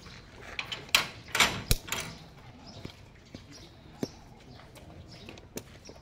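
A cluster of sharp knocks and clacks about one to two seconds in, then two more single knocks, over faint outdoor background.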